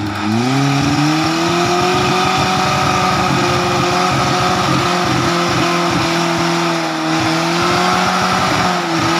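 Off-road jeep engine revving up over the first second and held at high revs under load as the jeep climbs a steep trail, dropping back near the end.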